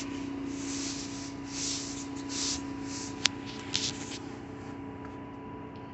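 Soft rustling and rubbing noises of movement and handling, with a sharp click a little over three seconds in and a couple of fainter clicks just after, over a steady low hum.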